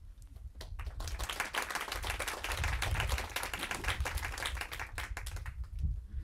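Audience applauding: scattered claps that swell into full applause about a second in, then die away near the end.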